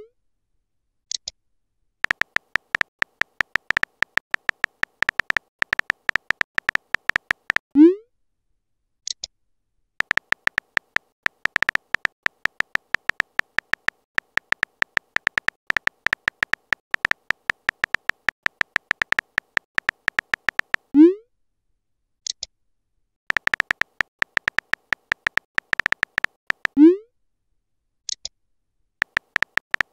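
Chat-app typing sound effect: long runs of rapid, even key clicks with a steady electronic tone as messages are typed out. Three times a run ends in a short rising bloop as a message is sent, and there are four brief high blips between the runs.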